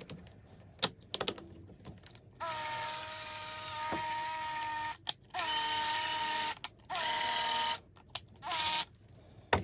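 Small electric drill motor whining at a steady high pitch, switched on and off in four runs: a long one of about two and a half seconds, then three shorter ones, after a few light clicks.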